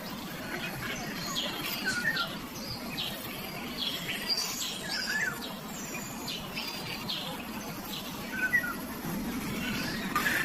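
Birds chirping: many short, high calls, several of them quickly falling in pitch, scattered irregularly over a steady background hiss.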